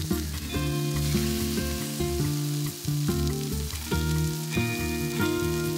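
Chicken fillets sizzling steadily in hot oil on a flat hot plate, with background music playing held notes underneath.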